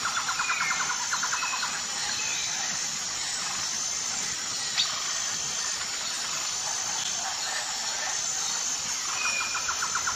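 Nature-ambience background track: a steady hiss with scattered short bird chirps, and a rapid trill in the first second and again near the end. There is a single sharp click about five seconds in.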